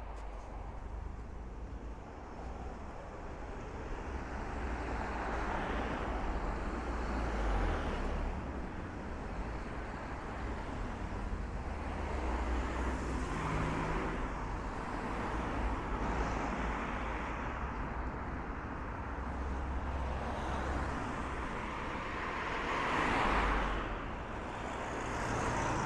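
Road traffic: cars passing one after another along the road, each swelling and fading over a few seconds, over a steady low rumble.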